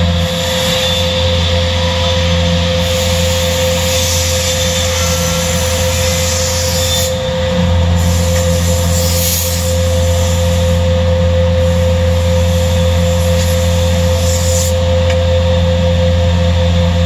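WARSM-DP5000L CNC panel beam saw running in automatic mode, cutting 18 mm particleboard. A steady machine drone with a constant hum runs throughout, and a hissing sawing noise swells and fades several times as the saw makes its passes.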